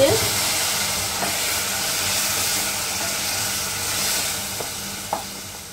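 Water poured into a pot of hot oil-fried tomato-onion masala, hissing and sizzling as it turns to steam, the hiss slowly dying down over several seconds. A couple of light clicks near the end.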